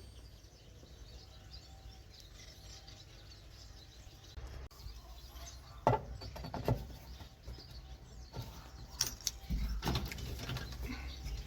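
Flathead screwdriver working on the metal headlight switch of a 1956 Ford F500 truck: a few seconds of quiet, then scattered sharp clicks and short scrapes of metal on metal.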